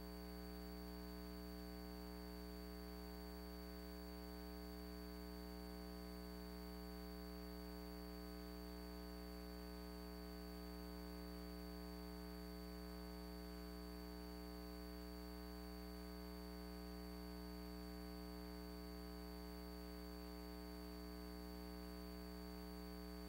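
Steady electrical hum with a thin high-pitched whine and faint hiss, unchanging throughout: line noise on the audio track with no programme sound.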